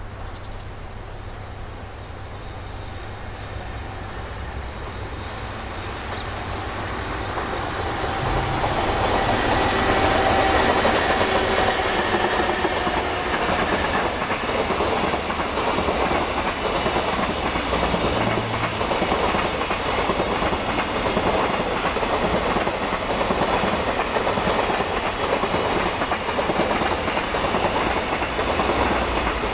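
Freight train of container wagons behind an EF65 electric locomotive climbing a grade. It grows louder over the first ten seconds or so as it approaches, then runs on as a steady clickety-clack of wagon wheels over the rail joints while the container cars pass.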